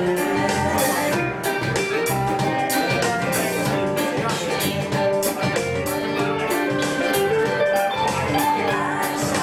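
Two electric guitars playing a rock number live through amplifiers, over a steady beat.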